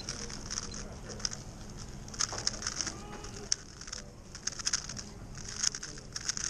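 WRM 2021 3x3 speed cube being turned at speedsolving pace: plastic layers clicking and clacking in quick bursts, with brief lulls between groups of turns.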